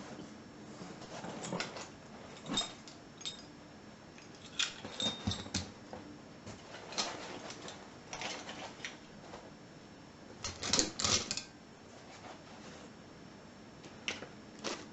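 Vintage metal padlocks being handled and set down one after another: scattered sharp metallic clicks and clanks at irregular intervals, the loudest cluster about eleven seconds in.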